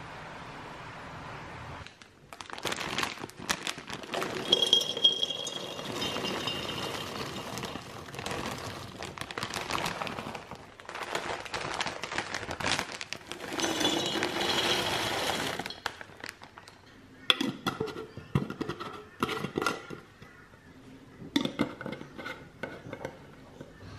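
Cashew nuts poured into glass jars, a dense clattering and crackling against the glass mixed with crinkling packaging, after a steady hiss at the start. In the last seconds come separate sharp clicks and clinks as metal screw lids go onto the glass jars.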